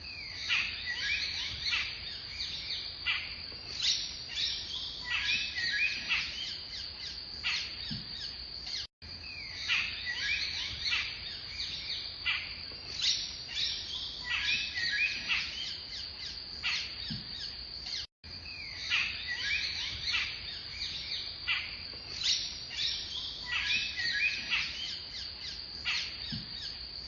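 Birds chirping and calling over a steady high-pitched hum. The same nine-second stretch plays three times over, cutting out for an instant at each join.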